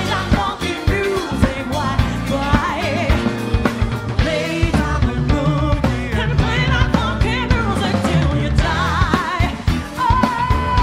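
A female lead singer with a live rock-pop band of drum kit, electric guitars and keyboard. Her voice wavers with vibrato over steady drum beats and holds one long note near the end.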